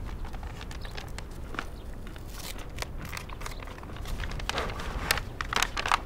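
A paper envelope being handled and torn open: crinkling and rustling with short tearing bursts, loudest over the last second and a half.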